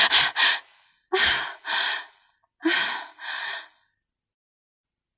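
A woman gasping sharply as she wakes with a start, then taking two heavy in-and-out breaths about a second and a half apart.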